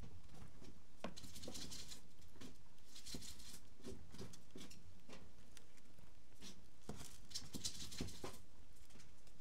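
Scratchy rustling and light clicks from a small pet animal moving about, coming in several short bursts.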